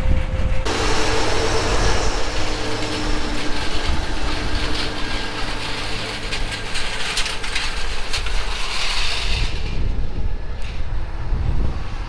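Versatile 365 four-wheel-drive tractor's diesel engine running steadily under load while pulling a tillage implement through corn stalks, a deep rumble with a broad hiss above it. The sound changes abruptly under a second in, and the hiss falls away near the end.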